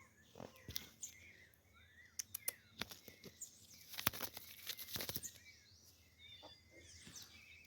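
Small birds chirping in the background, with scattered light clicks and knocks, a cluster of them about four to five seconds in.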